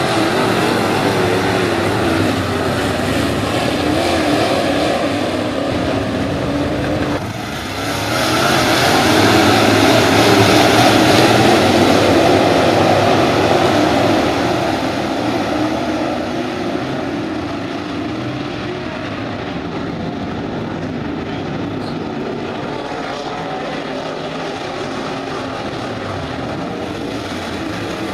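A field of IMCA Modified dirt-track race cars running their V8 engines at racing speed, pitches rising and falling as drivers get on and off the throttle through the turns. The sound swells to its loudest about a third of the way in as the pack passes close, then settles into a steadier drone of engines farther around the track.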